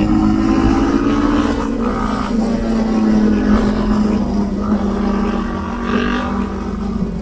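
Motorcycle engine heard from the rider's own bike, cruising along with wind noise on the microphone. Its note eases down slightly in the first second and a half, then holds steady.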